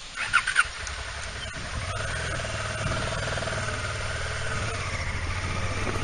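Honda Deauville motorcycle's V-twin engine running steadily as the bike pulls away, rising a little in pitch about two seconds in. A few short sharp sounds come about half a second in.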